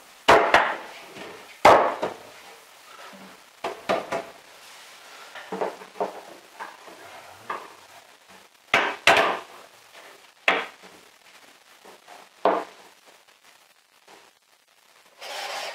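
Irregular wooden knocks and taps as a loose wooden shelf and its batten are handled and knocked into place inside a plywood cabinet, about a dozen separate knocks with quiet between. A steady noise starts near the end.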